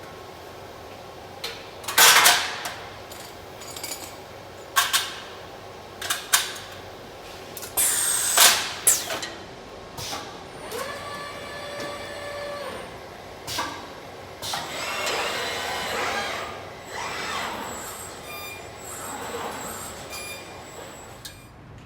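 Industrial welding-line machinery for car parts at work: a series of sharp metal clanks and knocks, a held machine tone for a couple of seconds in the middle, then a longer stretch of hissing.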